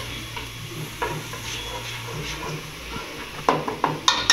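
A spatula stirring and scraping thick tomato sauce around a non-stick frying pan, over a low sizzle. A few sharper knocks come near the end.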